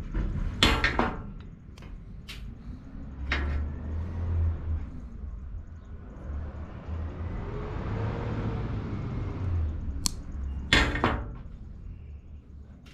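Workshop handling noises: a few sharp clicks and knocks of tools and small parts, a cluster about a second in, one at about three and a half seconds and another cluster near the end. In the middle a noisy whoosh swells up and dies away.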